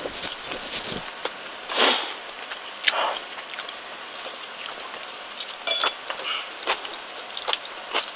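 Eating sounds at a body-worn microphone: chewing with soft mouth clicks, and chopsticks clicking against a rice bowl, with a brief louder rustle about two seconds in.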